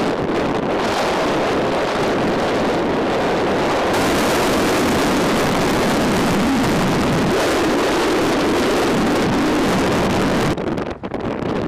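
Loud, steady rush of wind and road noise from a moving car. About ten and a half seconds in it drops abruptly and turns into uneven, fluttering wind on the microphone.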